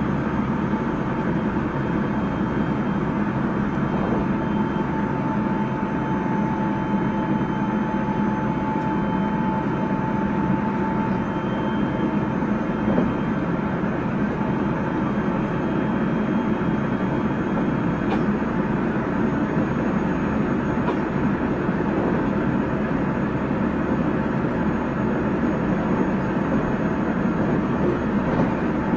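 JR Central 373 series electric train running at speed, heard from inside the car: steady rumble of wheels on rail and running gear. A faint, thin whine near 1 kHz rises in about four seconds in and fades out by about eleven seconds. This is set F2, which is known for an unusual running noise.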